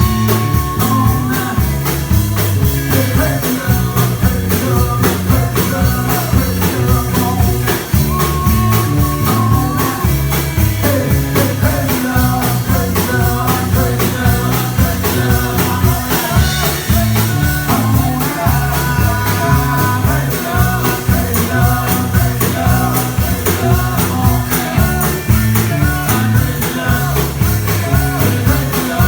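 A live band playing a song, with a steady beat and a strong bass line under guitar and melody.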